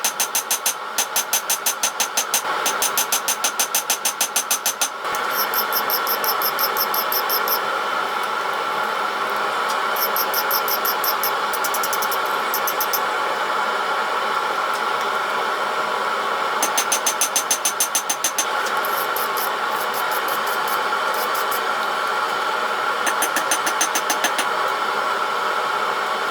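Runs of rapid, evenly spaced hammer blows ringing on steel, about four or five a second, over a steady roar.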